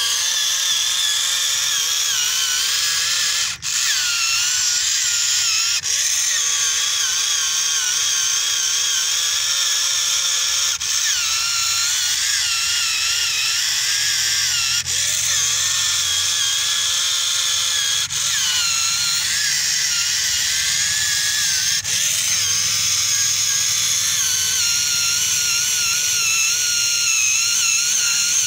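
Small electric motor and gearbox of a homemade toy tractor whining steadily as it drives through sand. The pitch wavers up and down as the load changes, and the sound dips briefly with a click about six times.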